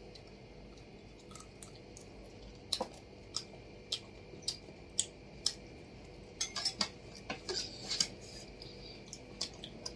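Faint, scattered clicks and clinks of tableware during a meal eaten by hand: fingers and a steel tumbler tapping against ceramic plates and steel bowls, roughly one every half second from about three seconds in, with a few close together near the middle.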